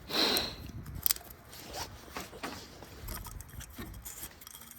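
Handling noises of a cartridge oil filter and O-ring being fitted to a plastic oil filter housing cap: a short rustle at the start, a sharp click about a second in, then light scrapes and taps of plastic parts.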